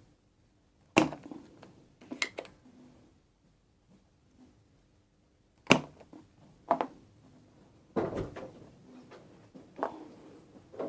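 Sharp knocks and clicks of tools and a small electronic part being handled on a workbench during a soldering repair, about six spread irregularly with quiet in between.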